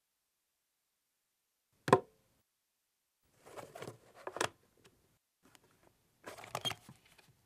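A single sharp knock about two seconds in, then two bouts of rustling and light clattering as a box and papers are handled on a wooden table.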